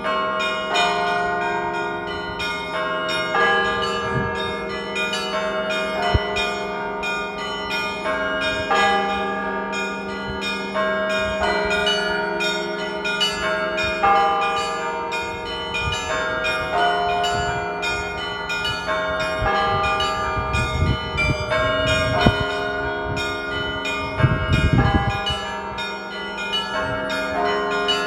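Russian church bells ringing together in a continuous peal (kolokolny zvon). Many smaller bells are struck in quick succession over the steady hum of a large low bell.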